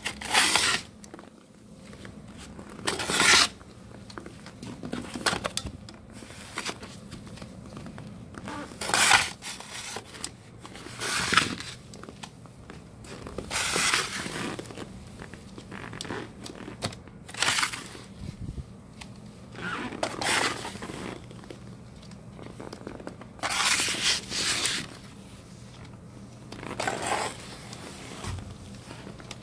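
Plastic snow shovel scraping and scooping snow off a balcony floor, in repeated strokes every two to three seconds.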